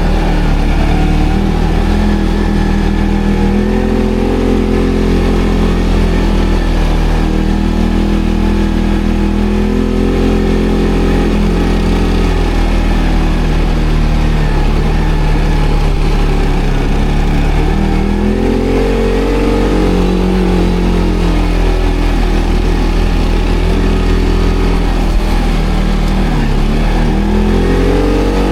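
ATV engine running, its pitch rising and falling several times as the throttle is opened and eased off, over a steady low rumble.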